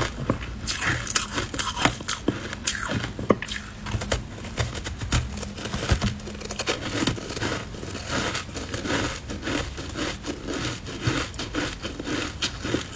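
Ice coated in matcha powder being bitten and chewed close to a clip-on microphone: a continuous run of sharp crunches and crackles.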